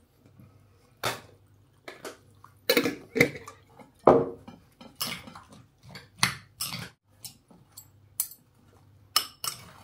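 Metal spoons clinking and scraping against a glazed ceramic bowl as a salad is tossed: a string of separate sharp clicks and knocks, some with a brief ring.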